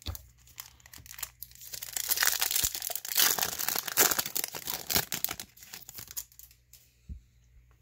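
Foil wrapper of a 2018 Topps Gallery baseball card pack being torn open and crinkled by hand: a dense crackling rustle that builds about a second and a half in and dies away around six seconds.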